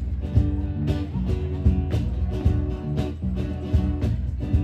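Instrumental passage of a country-pop song: guitar and bass over a steady drum beat, about two beats a second.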